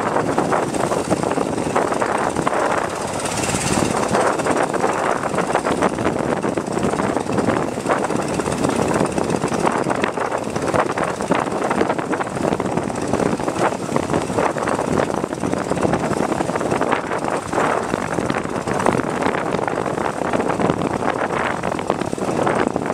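Motorboat engine running steadily under way, mixed with wind on the microphone and water rushing past the hull.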